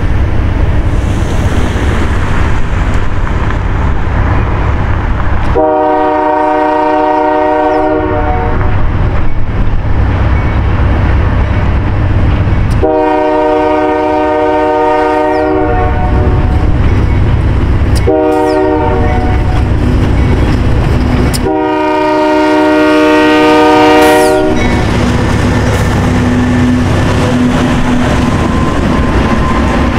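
Union Pacific diesel locomotive blowing its multi-note air horn in four blasts, long, long, short, long, the standard signal for a road crossing ahead, over the steady low rumble of its engine. Near the end the locomotive passes close by, leading empty covered grain hoppers, and the wheels clack over the rail joints.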